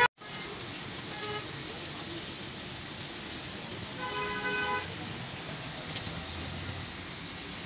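Street traffic with a car horn tooting briefly about a second in, then again, longer and louder, for most of a second about four seconds in, over a steady hiss.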